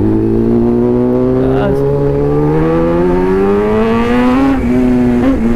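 Kawasaki ZX-10R's inline-four engine accelerating under throttle, its pitch climbing steadily for about four and a half seconds and then levelling off.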